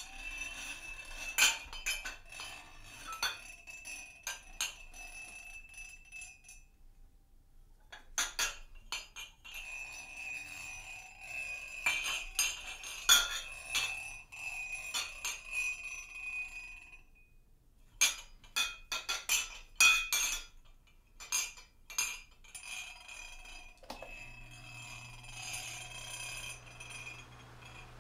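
Small hand percussion played in a free, unmetred way: metal and glass objects tapped and clinked, each strike ringing briefly, with one high ringing tone lingering through the busier passages. The playing stops briefly twice, about a quarter and about two thirds of the way through, and a faint low hum comes in near the end.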